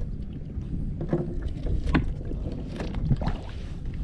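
Water splashing and knocking in short strokes, five or six of them, as a large blue catfish is released over the side of the boat, over a steady low wind rumble.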